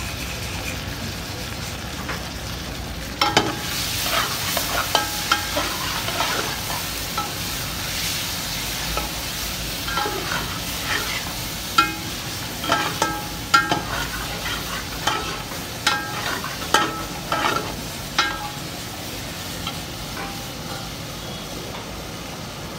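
Chicken pieces frying in oil in an aluminium pot, sizzling steadily, while a metal ladle stirs them. The ladle clinks and scrapes against the pot in a run of sharp knocks from about three seconds in until a few seconds before the end.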